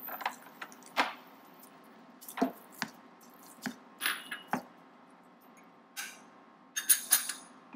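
Black slotted spatula stirring cut potatoes in a white-lined frying pan, knocking and scraping against the pan in irregular clicks, with the loudest cluster of knocks near the end.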